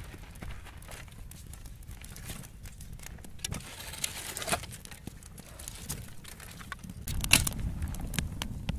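Dry twigs and brush crackling and snapping as they are handled, along with a small wood fire crackling and gravel crunching, with a louder knock about seven seconds in.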